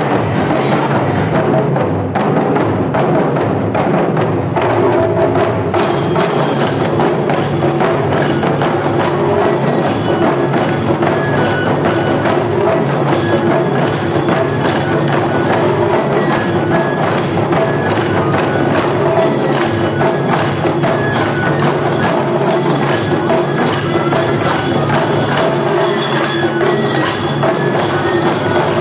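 Wadaiko ensemble of Japanese taiko drums playing a dense, driving rhythm with sharp wooden clicks among the drum strikes. A brighter, higher sound joins about six seconds in.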